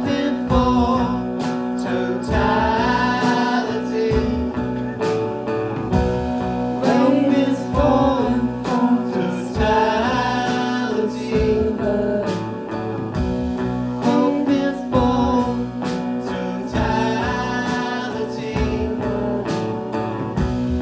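A live band playing: guitar over a steady held drone, with a bending melody line that comes back in phrases every few seconds.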